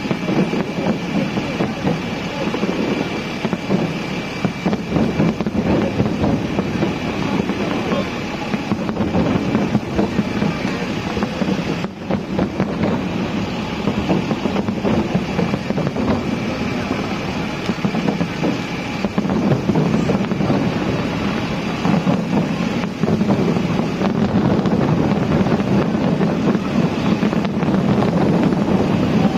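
Steady wind noise on the microphone over a murmur of voices.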